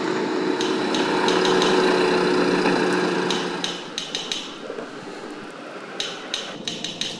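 A steady engine-like drone with a low hum fades out about four seconds in. Over it come irregular runs of light, sharp metallic clicks and clinks, like small hard objects rattled in a hand.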